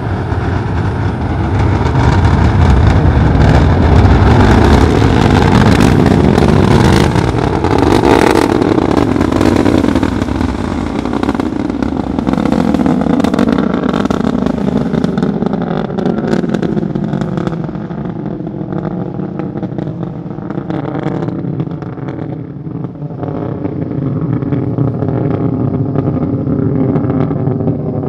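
Delta IV Medium+ rocket's RS-68A main engine and four solid rocket boosters heard from miles away after liftoff: a deep rumble full of crackle. It swells in over the first couple of seconds, is loudest for the next several, then eases and grows duller as the rocket climbs away.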